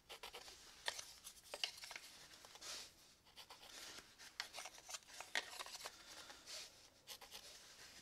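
Pencil scratching short marking strokes on a small piece of wood along a set square, with light clicks as the square is shifted against the wood.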